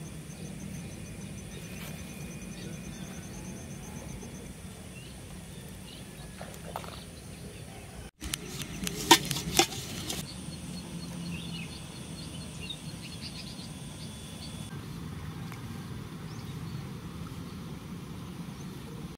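Lakeside outdoor ambience: a steady low hum with faint, rapidly repeated high chirping, and a few sharp clicks about nine seconds in.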